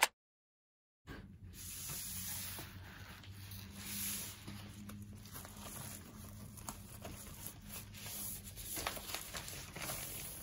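Plastic bubble mailer crinkling and rustling as it is handled by hand and a paper envelope is slid out of it, with irregular small crackles and scrapes. It starts about a second in.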